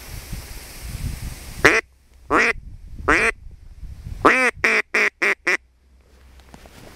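Duck call blown in mallard quacks: three spaced quacks, then a quick run of five. It is used to answer a distant quacking that turns out to be another hunter's call.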